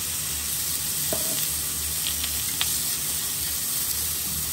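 King oyster mushroom halves sizzling steadily in an oiled griddle pan, with a few faint light clicks.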